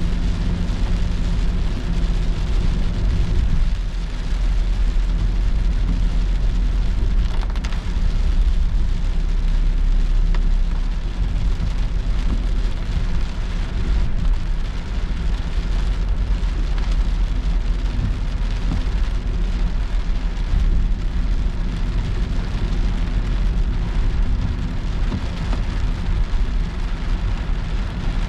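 Heavy rain falling on a moving car's windshield and roof, heard from inside the cabin as a steady hiss over the low, even rumble of the car driving on the wet road.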